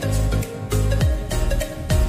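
Electronic background music with a steady beat and deep bass notes that slide downward.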